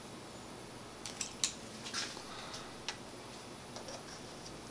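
Hand snips cutting through the metal backing channel of a brush-strip sweep: a handful of short, sharp snips in the first three seconds, then a few fainter clicks as the strip is handled.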